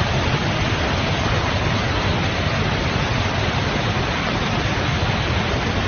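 Torrent of mud and water from a burst dam rushing past, a steady dense rushing noise with a deep rumble underneath.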